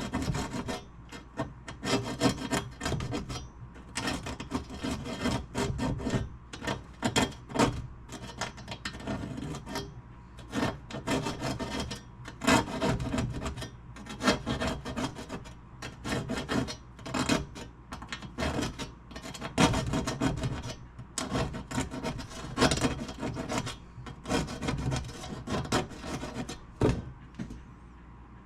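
Razor blade scraping flaking old finish and rust off a stereo cabinet in quick, irregular strokes, loud and rasping. The scraping stops shortly before the end.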